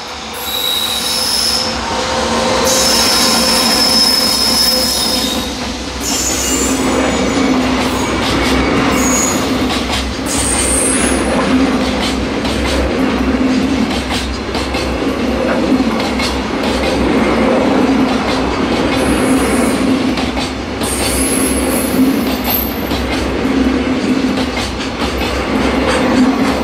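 JR Freight EF210 electric locomotive passing, followed by a long train of loaded container wagons rolling by with a steady rumble and a rhythmic clatter of wheels over rail joints about once a second. High wheel squeals come and go over the clatter.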